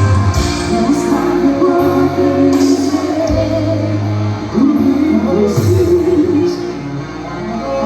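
Live band music with a voice singing over a steady bass line.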